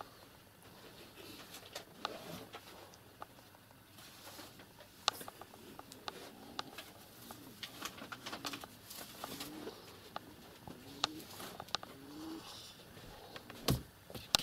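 Two kittens playing in and around a small wooden box on a blanket: many light scratches, taps and claw clicks, with a few soft, low rising-and-falling calls in between, and a louder thump near the end.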